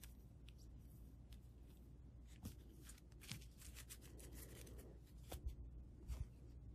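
Faint rustling and clicking of a stack of trading cards being handled and leafed through, with a few soft knocks in the second half as the stack is set down on the table.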